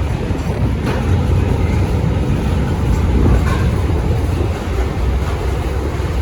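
Steel freight train passing close by: a loud, steady low rumble with no horn sounding.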